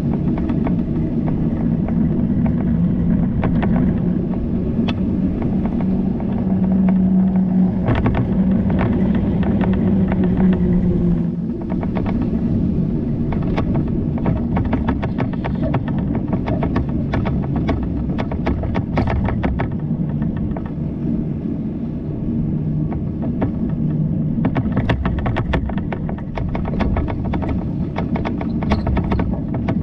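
Steady rumble of a bicycle ride, with a low hum and many short rattling clicks throughout.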